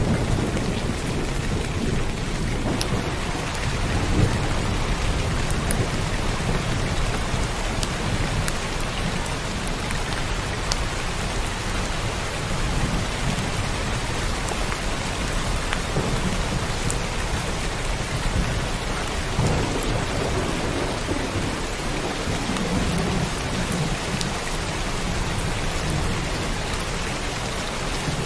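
Heavy rain pouring steadily, with a low rumble underneath that swells and fades in places, like distant thunder.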